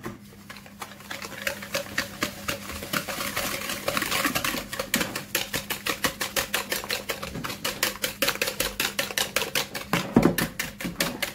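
Wire hand whisk beating eggs and sugar in a plastic mixing bowl: quick, regular clicking strokes, several a second, as the wires strike the bowl, with one louder knock near the end. This is the stage of beating the eggs and sugar until pale.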